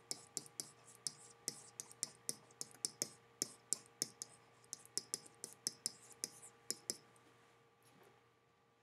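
A stylus tapping and clicking against a writing surface as words are handwritten: a run of sharp light clicks, about three to four a second, that stop about seven seconds in. A faint steady hum lies underneath.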